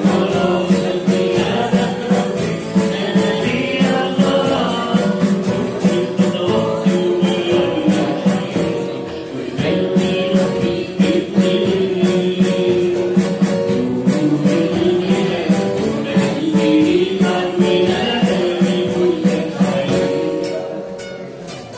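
Live Arabic Christian hymn: a male singer on a microphone over keyboard, acoustic guitar and percussion keeping a steady beat. The band dips in level near the end.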